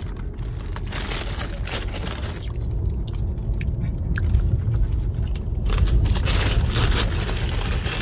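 Brown paper shopping bag and snack packets rustling and crinkling as they are handled, loudest about a second in and again from about six seconds on, over a steady low rumble of the car.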